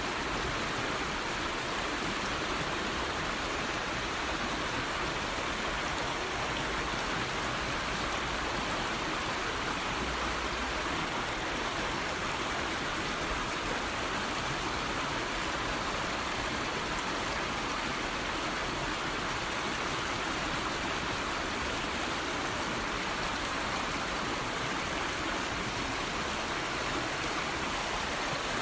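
Steady rush of falling water, an even hiss without breaks or single sounds.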